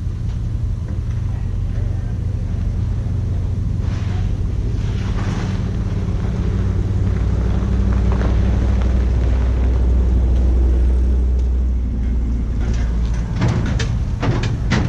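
A motor vehicle's engine running steadily, growing louder for a few seconds past the middle and easing off again. Several sharp clicks and knocks come near the end.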